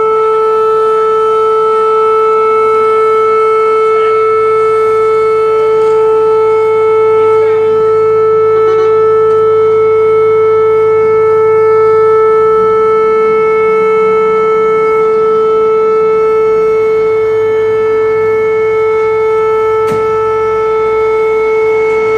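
Fire-alarm siren sounding a single steady, unwavering tone, the alarm that calls out the volunteer fire crew.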